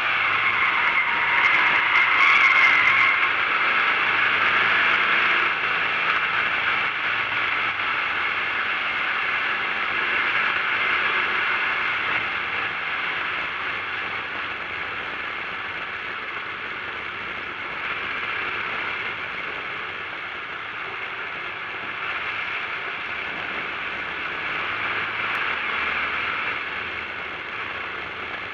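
Onboard cabin noise of a racing Volkswagen Fusca (Beetle) driven at speed on a track: a steady, rough rush of engine and car noise, loudest in the first few seconds and then gradually quieter.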